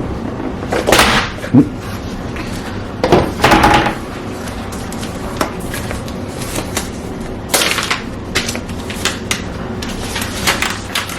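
Cardboard box and packaging being opened and handled: rustling and sliding scrapes with several knocks, the sharpest about one and a half seconds in, and many small clicks and rustles later on.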